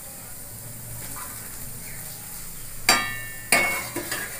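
A steel wire skimmer clanks twice against steel cookware, about three and three and a half seconds in, each strike ringing briefly, while fried potato cutlets are lifted out of the oil and set down. A faint sizzle of hot frying oil runs underneath.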